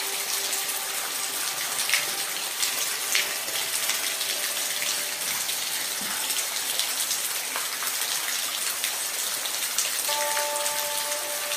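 Steady rain falling, an even hiss with individual drops ticking sharply on a surface, a few louder ones about two and three seconds in. Faint held music tones lie underneath, fading early and coming back near the end.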